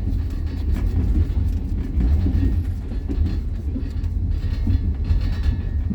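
Train running, heard from inside the carriage: a steady low rumble with the clack of wheels over rail joints now and then.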